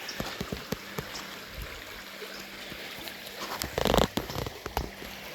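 Creek water running steadily over rocks, with scattered clicks and knocks like stones shifting underfoot. About four seconds in, a short, loud rasping sound cuts across it.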